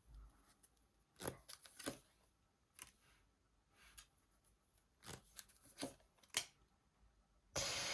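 Tarot cards being handled and drawn: a series of faint, short card snaps and slides, with a longer swish near the end.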